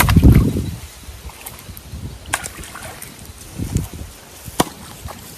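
Water splashing and sloshing, with a heavy surge right at the start and a smaller one later, and a few sharp clicks and knocks.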